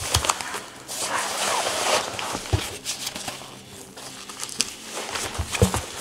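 Fabric laptop backpack rustling and scuffing as a laptop is slid into its padded compartment and the bag is closed and patted flat, with a few light knocks.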